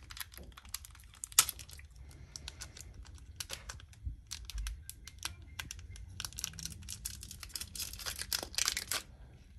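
Foil wrapper of a Pokémon booster pack crinkling and crackling in the fingers as it is worked at to tear it open: scattered small clicks and crinkles that come thicker near the end.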